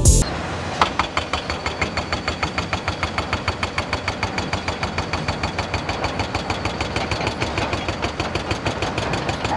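Heavy construction machine running with an even, rapid clatter of about six pulses a second.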